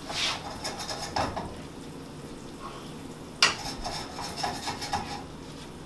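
A utensil stirring and scraping in a cooking pot, with light clinks and one sharp knock against the pot about three and a half seconds in.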